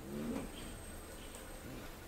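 Mandrill giving one short, low grunting call about a quarter second in, rising then falling in pitch, and a fainter low call near the end.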